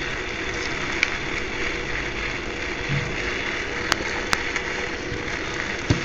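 Steady whirring of a small electric motor running on the fischertechnik rig, with a few light clicks about a second in and twice around four seconds in as the test probe and wires are handled.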